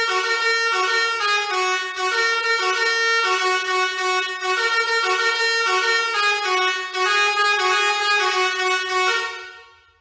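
Basuri 5.0 six-trumpet electric musical air horn playing one of its built-in melodies, a tune of stepped, held horn notes that dies away near the end.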